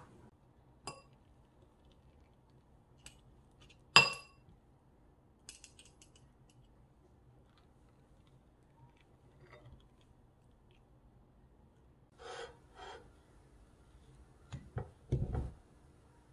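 Sparse handling of metal utensils and glass dishware: a sharp clink with a short ring about four seconds in, then two brief soft scrapes as a melon baller works into melon flesh, and a few dull knocks near the end.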